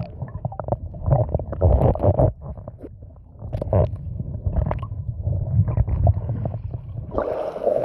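Muffled underwater rumble and gurgling picked up by a phone microphone in a waterproof case held under the sea, with scattered knocks and bubbles from a swimmer moving nearby. About seven seconds in the sound opens out as the case breaks the surface.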